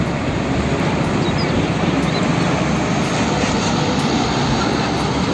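Hino tanker truck's diesel engine running as the truck drives along the road, a steady rumble mixed with road and wind noise.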